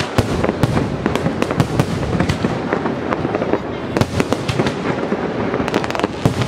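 Aerial fireworks display: a continuous barrage of shell bursts, with many sharp bangs in quick succession over steady crackling.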